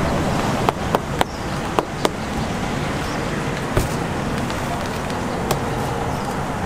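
Busy street-market background din, with a handful of short, sharp taps or knocks, most of them close together in the first two seconds.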